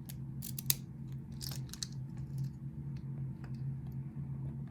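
A few sharp little metal clicks and light rattles of a pin-tumbler lock core and its key being handled, over a steady low hum.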